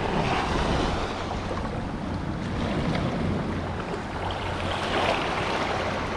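Wind buffeting the microphone over sea water washing around a kayak: a steady rushing noise with no distinct events.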